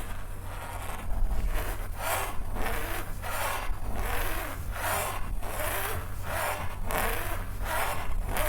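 Fast, rhythmic rubbing strokes right on a TASCAM recorder's microphones, about two a second, each a short scratchy swish.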